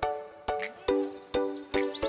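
Background music: a light, bouncy tune of plucked or struck notes, about two a second.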